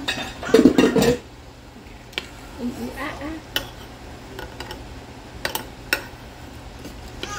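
A metal spoon stirring beans and water in a slow cooker's crock, with sharp clicks and knocks as it hits the sides. A young child babbles loudly about half a second in and more softly later.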